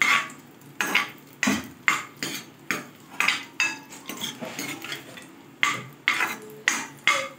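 A steel ladle clinking and scraping against a metal pan while it stirs cashews and raisins in ghee. The clinks are sharp and irregular, about two a second, with a short lull about halfway through.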